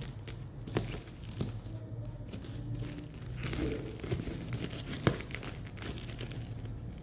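Scissors cutting through thin plastic parcel wrapping, the plastic crinkling as it is held and cut, with a few sharp snips; the loudest snip comes about five seconds in.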